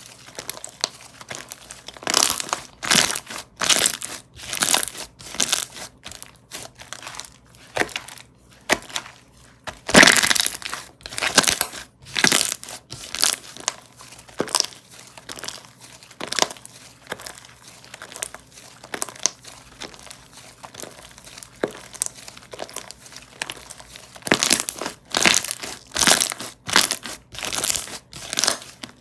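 Slime being squeezed and pressed by hand, giving crackly, crinkling pops in short bursts about once a second, the loudest about ten seconds in.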